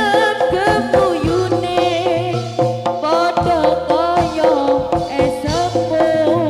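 Jaranan accompaniment music from a Javanese gamelan ensemble: hand drums beating steadily under held metallophone tones, with a melody line that slides and wavers in pitch.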